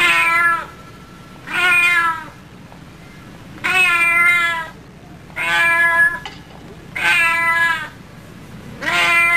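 Cat meowing loudly and repeatedly: six drawn-out meows, about one every second and a half.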